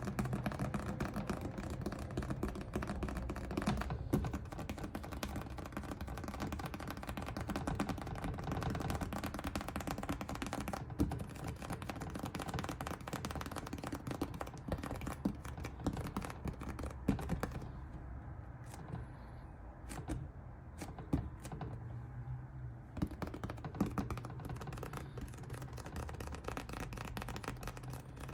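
Dense, irregular scratching and clicking against a surface, with a quieter, sparser stretch about two-thirds of the way through.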